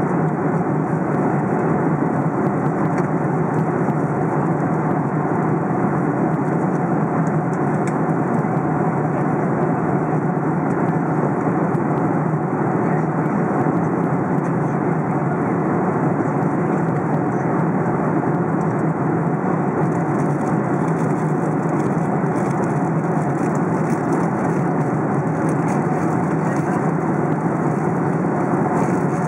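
Cabin noise of a Boeing 747 cruising at high altitude and speed: a steady, even rush of airflow and engine noise that does not change.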